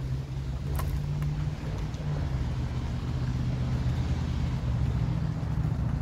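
A motor running steadily: a low rumble with a droning hum that swells slightly in the second half, with a couple of faint clicks about a second in.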